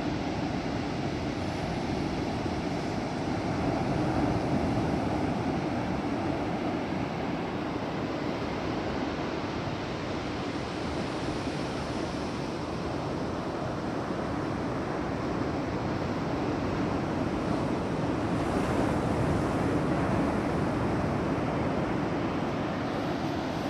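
Ocean surf breaking on a beach: a steady wash of large waves, swelling louder about four seconds in and again near the end.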